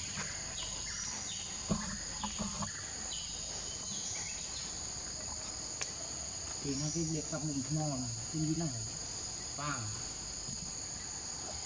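Forest insects keeping up a steady high-pitched drone. People talk briefly from about six and a half seconds in.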